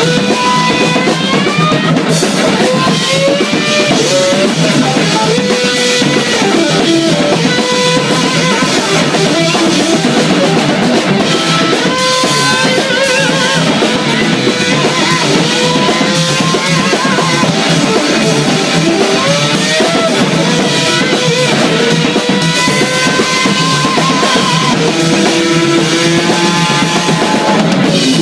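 Live jazz-rock fusion trio of electric guitar, electric bass and drum kit. The guitar plays a lead line of bent notes and wavering held notes over busy drumming and bass.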